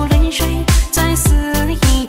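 DJ dance remix of a Chinese pop ballad: a heavy kick drum beats about three times a second under a sung vocal line.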